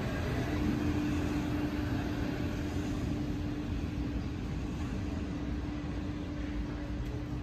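Tatra KT4D tram running off down the street: a low rumble with a steady hum, slowly fading as it draws away.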